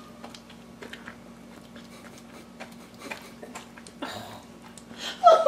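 Rhodesian ridgeback licking and chewing cake off a tile floor: soft, irregular wet smacks and clicks of tongue and jaws.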